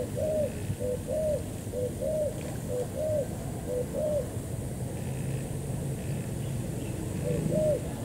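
Spotted dove cooing: a repeated phrase of a short note followed by a longer arched coo, about five phrases in the first four seconds, then a pause, resuming about seven seconds in.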